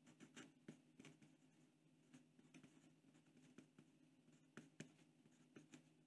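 Faint scratching of a Pentel Sharp Kerry mechanical pencil's 0.5 mm HB lead on drafting vellum as letters are printed: a scatter of short, separate strokes over a faint steady low hum.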